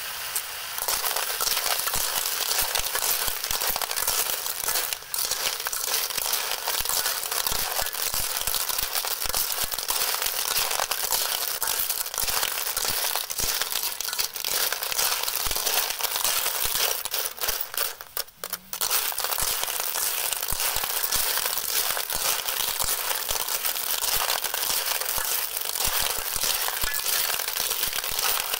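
Blood cockle shells clattering and scraping against a steel wok as they are stir-fried with two metal spatulas, a dense continuous rattle. It starts about a second in and pauses briefly about two-thirds of the way through.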